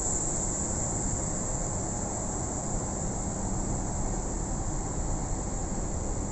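Steady air-conditioning noise inside a parked Boeing 777-200's cabin: an even high-pitched hiss over a low hum.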